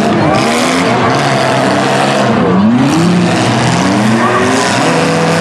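Engines of several mid-size demolition derby cars revving at once, each rising and falling in pitch and overlapping, loud and continuous.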